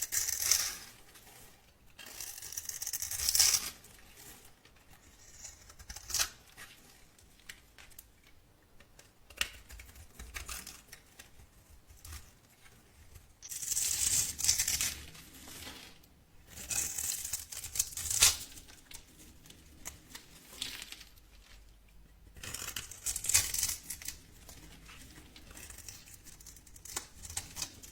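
Dry soap being cut and crumbled. It makes crisp, crackling bursts of a second or two, about six times over, with short quiet gaps between them.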